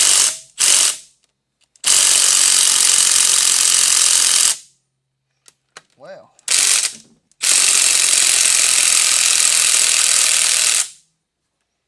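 Battery-powered ratchet wrench running on a bolt in bursts: three quick short pulls, then two long runs of about three seconds each with a short pull between. The bolt is proving stubborn.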